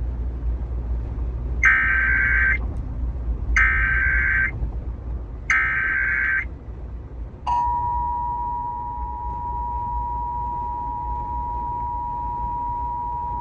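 Emergency Alert System tones played over Sirius XM satellite radio: three one-second bursts of warbling digital header data, evenly spaced, then about a second later the steady two-tone attention signal. This sequence opens an EAS alert, here the national test.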